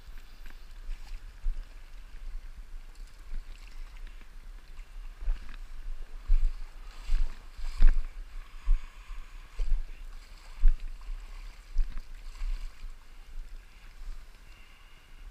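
Water splashing and sloshing unevenly as someone wades through shallow river water over stones. Irregular knocks and dull low thumps come through, most often through the middle stretch.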